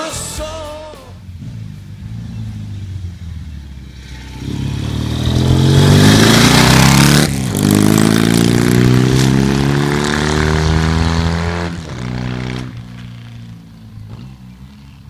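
Motorcycle engine running low and steady, then revving up hard with its pitch climbing. About seven seconds in the pitch drops sharply once, as at a gear change, then climbs again before the engine eases off and fades near the end.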